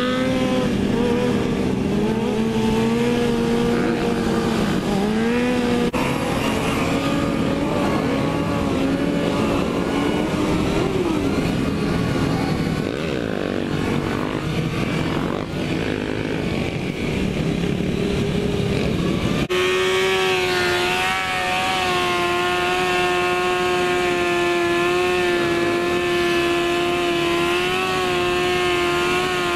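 Motorcycle engines running during a group ride, the nearest engine's pitch rising and falling with the throttle. About two-thirds of the way through, the sound changes abruptly to one steady engine note held at nearly constant speed.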